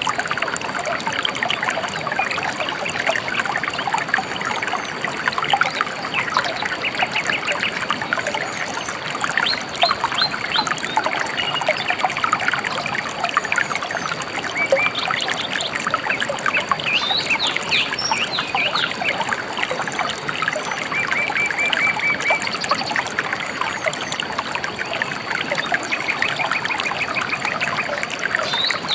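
A gently flowing river babbling and trickling steadily, with small birds chirping now and then in short runs of quick, high notes.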